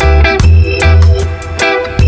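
Background music with a strong bass and short, rhythmic off-beat chords, in a reggae-like groove.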